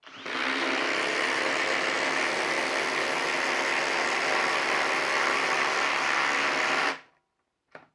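FLEX 24 V brushless impact driver hammering continuously as it drives a large lag screw into the end grain of a log. It stops suddenly about seven seconds in as the screw seats.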